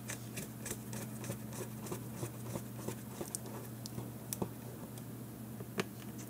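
Small T5 Torx screwdriver driving the screws back into a GPS unit's back cover: faint, irregular small clicks and scratches of the bit and screws on the plastic-and-metal case.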